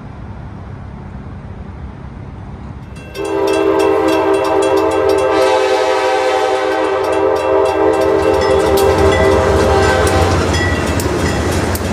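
Passing train rumbling, then its horn sounding about three seconds in and held as one long chord for about eight seconds, with clicking of wheels over the rails.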